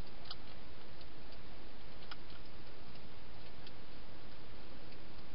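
A wild hedgehog eating inside a clear plastic feeding box: faint, irregular crunching clicks, a few a second, over a steady hiss.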